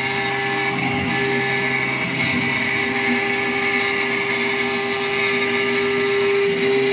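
Langmuir Systems MR-1 gantry mill's spindle at 8,000 RPM, its end mill full-width slotting aluminium 0.040 in deep at 235 inches per minute: a steady cutting whine over the hiss of an air blast clearing the chips.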